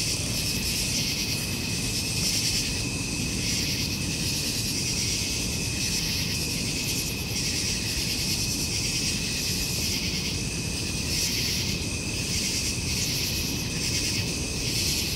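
A chorus of crickets and other insects chirping steadily, with a low rumble of background noise beneath.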